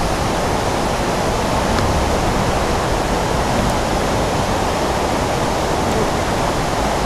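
Steady rushing noise, loud and even throughout, with no distinct knocks or clicks.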